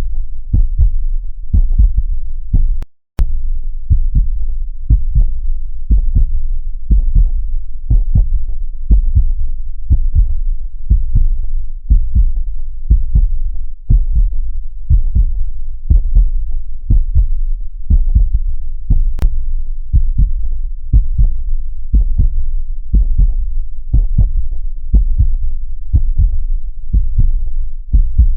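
A heartbeat: steady low lub-dub thumps repeating evenly, with a brief break in the sound about three seconds in.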